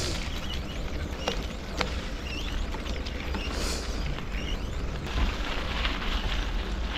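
Wind buffeting a bike-mounted camera's microphone as the bicycle rolls along a wet road, a steady low rumble with tyre hiss. A few sharp clicks and rattles from the bike come through, two of them close together about a second in.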